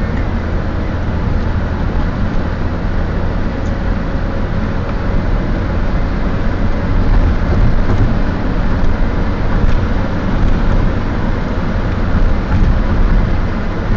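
Steady road and engine noise heard from inside a car's cabin as it cruises along a motorway.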